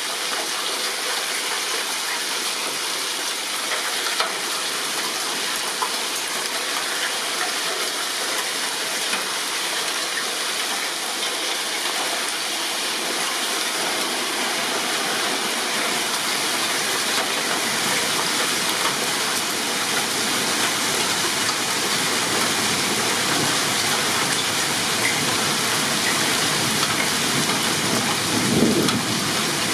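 Heavy thunderstorm rain pouring down steadily, growing a little louder and fuller about halfway through. A short low rumble comes near the end.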